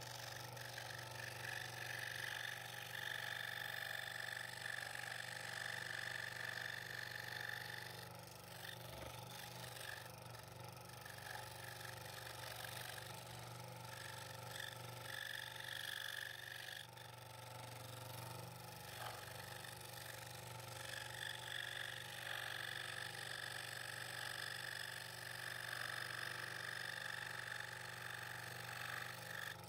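Scroll saw running, its blade cutting through a double-stacked wooden blank: a steady low hum with a higher cutting buzz that eases twice, about eight seconds in and again near eighteen seconds.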